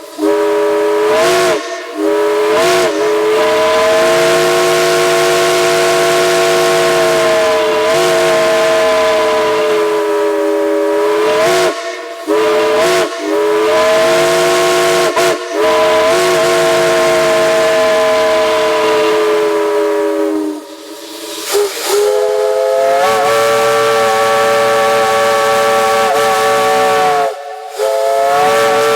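Steam locomotive chime whistles blowing long blasts, several notes sounding together as a chord over a hiss of steam. There are short breaks between blasts, and the pitch bends up slightly as a blast starts.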